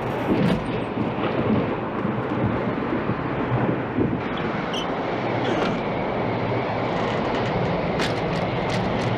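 Tornado wind blowing hard, a steady rushing noise, with a few sharp knocks and clatters of banging debris, the loudest near the start and near the end.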